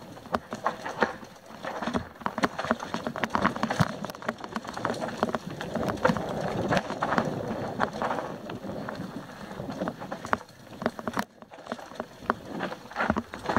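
Mountain bike descending a rocky dirt trail: tyres crunching over dirt and stones, with a constant irregular rattle and clatter of the bike over rocks and roots. There is a short break near the end.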